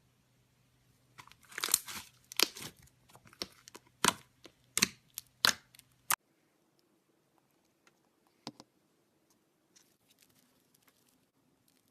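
Slime being handled, giving a run of sharp crackling snaps and pops, about one every half second to a second, that stops about six seconds in; afterwards only a few faint soft clicks.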